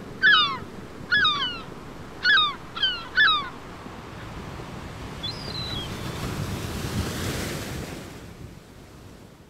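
Seaside ambience: gulls calling over the wash of surf. There are five short, falling cries in the first few seconds and a fainter one a little later. The surf swells about seven seconds in, then fades out.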